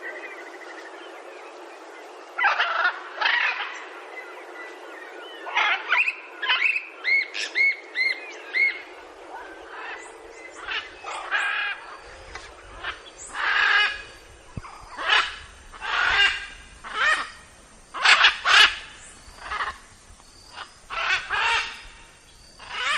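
Macaws calling: loud squawks in repeated bursts, coming more often in the second half, with a quick run of short rising-and-falling notes about a third of the way in.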